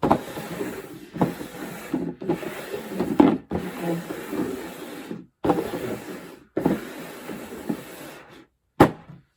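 Rubbing and rustling noise in several stretches, each cut off by a sudden short silence, with a sharp click near the end.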